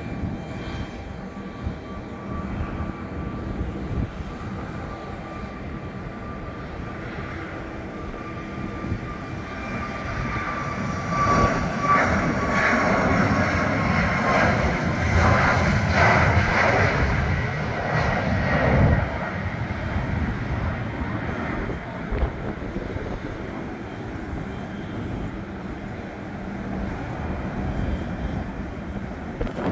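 Boeing 737 MAX 8 jet at takeoff thrust from its two CFM LEAP-1B turbofans during the takeoff roll and climb-out. A steady rumble carries a thin whine. Near the middle it swells to its loudest and the whine drops a little in pitch as the jet passes, then it eases off as the jet climbs away.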